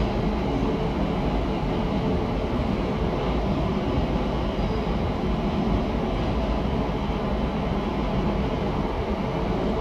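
Converted 485-series electric train pulling away over the station pointwork, its motors and wheels making a steady running noise.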